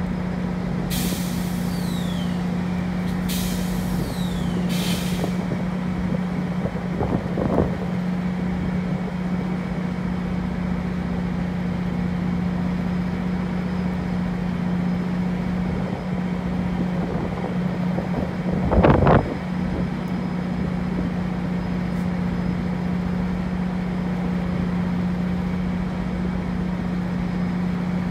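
GO Transit bilevel commuter train standing at the platform, giving a steady low hum. Hisses of released brake air come twice in the first five seconds, then short air blasts follow about seven seconds in and, loudest, about nineteen seconds in.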